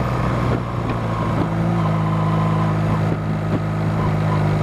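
Honda Rebel 250 motorcycle engine running steadily at low speed, its note stepping up slightly about two seconds in.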